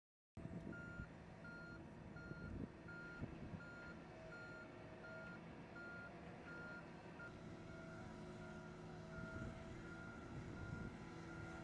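Vehicle warning beeper on the heavy wheeled transporter moving an SLS core stage liquid hydrogen tank, beeping steadily at one pitch about one and a half times a second over a low engine drone. About two-thirds of the way through, the beeps become longer.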